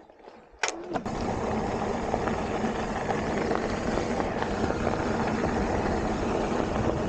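Steady rushing noise of a mountain bike running fast down a dirt trail, Specialized Stumpjumper on 2.8-inch 27.5+ tyres: tyre roll and air rushing past the mic, starting abruptly about a second in.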